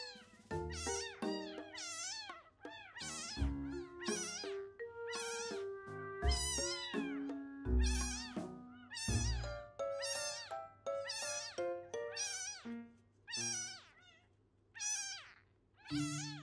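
Newborn kitten crying, a string of short high-pitched mews about one a second, as its belly is wiped with a tissue. Background music with held notes plays underneath.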